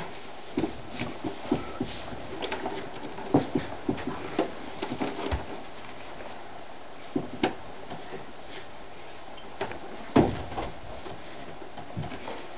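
Scattered light clicks, taps and knocks of hands fiddling with a small box, with one louder knock about ten seconds in.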